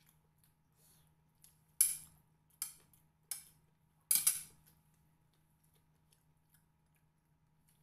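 A metal spoon clinking against a plate: four short, sharp strikes within about two and a half seconds, the first and last the loudest.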